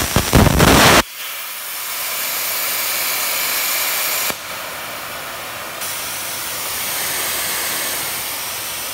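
CNC plasma cutter's arc cutting through sheet metal, a loud hissing crackle that cuts off abruptly about a second in as the cut ends. A steady air hiss from the torch keeps going after the arc stops, dropping in level about four seconds in.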